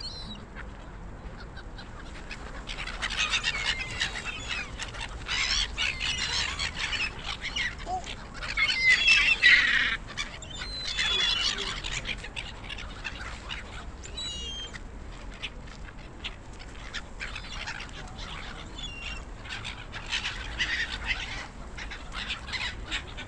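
A large flock of gulls calling over one another in many short, overlapping cries. The calling is busiest and loudest from about three seconds in until about twelve, then thins to scattered calls.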